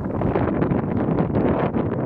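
Wind blowing across the microphone, a continuous rough rushing noise.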